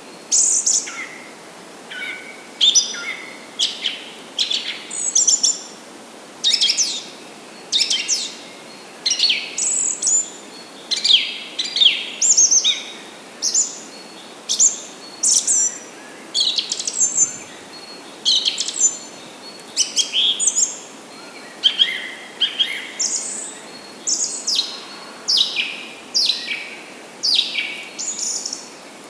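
Songbirds singing: a steady run of short, high chirping and trilling phrases, about one a second, over a faint background hiss.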